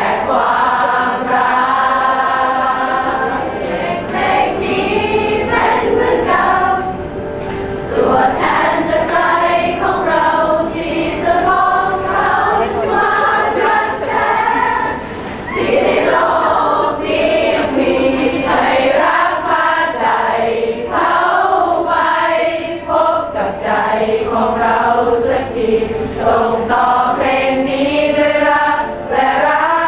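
A group of voices singing together, continuous throughout.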